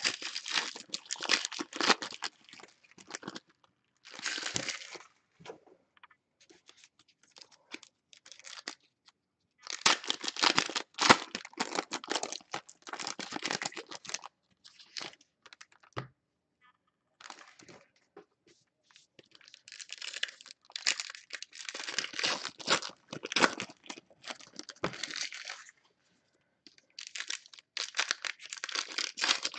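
Foil baseball card pack wrappers being torn open and crinkled by hand, in several bursts separated by short pauses.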